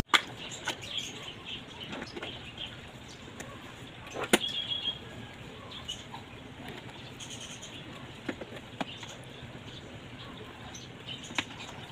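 Scattered light clicks and taps of a socket wrench on a long extension working the bolts of a car's plastic air filter housing, over a low background hiss; the loudest click comes about four seconds in.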